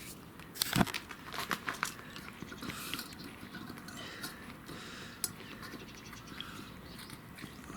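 A cat chewing and crunching food in quick, irregular crunches, with one sharper knock about a second in.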